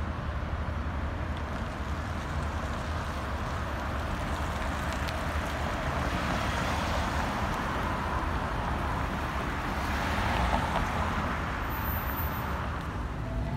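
Road traffic on a busy city street: a steady low rumble of car engines and tyres, swelling for a few seconds past the middle as vehicles pass close by.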